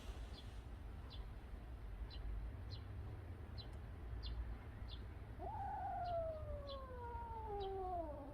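A cat's single long meow, starting about five seconds in and sliding steadily down in pitch for about three seconds. Short high bird chirps repeat about once a second throughout.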